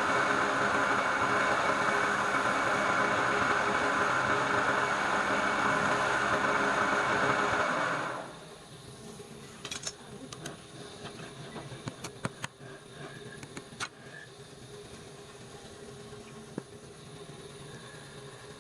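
A motor-driven workshop machine runs steadily, then stops about eight seconds in; scattered light clicks and taps follow.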